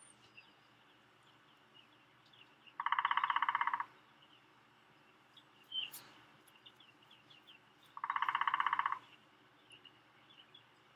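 Outdoor nature sounds: an animal's rapid trill, about a second long, heard twice some five seconds apart, with faint small chirps between.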